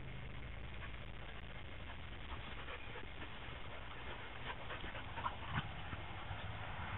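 Puppies playing rough, with a few short faint yips and play noises in the second half, over a steady low background rumble.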